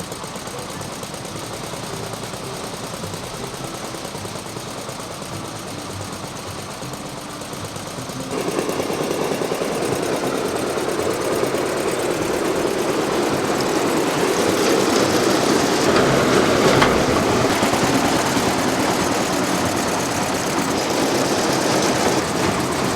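The small engine of a 1966 Massey Ferguson MF10 garden tractor running steadily while driving a silage wagon through a front 540 rpm PTO. About eight seconds in the sound steps up louder and fuller and stays there.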